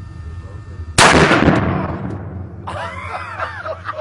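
A single gunshot about a second in, loud, its report dying away over a second or so. A person then starts laughing.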